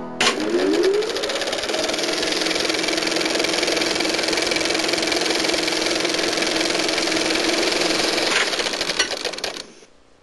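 Film projector sound effect: the motor spins up with a rising whine, then runs with a rapid, steady clatter. Near the end the clatter slows and the sound stops.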